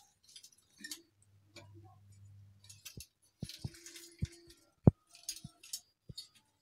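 Hand-held metal lemon squeezer pressing lemon halves over a steel mixer-grinder jar: scattered clicks and knocks of metal on metal, the loudest a sharp knock about five seconds in.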